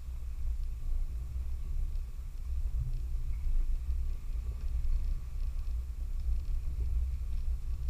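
Low, uneven rumble of an off-road 4x4 driving on a dirt trail, swelling and easing throughout.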